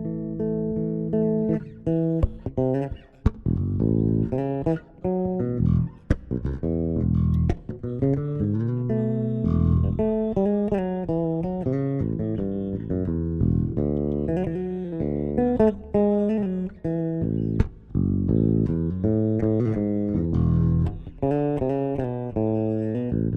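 Bass guitar played as a solo melodic instrument, with plucked notes, double-stops and quick runs in a northeastern Brazilian style, and a few sharp percussive clicks.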